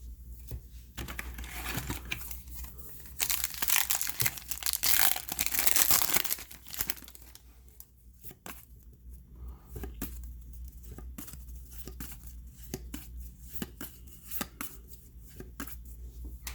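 A trading-card pack wrapper being torn open and crinkled, loudest for a few seconds near the start. It is followed by lighter clicks and rustles as the cards are handled, over a low steady hum.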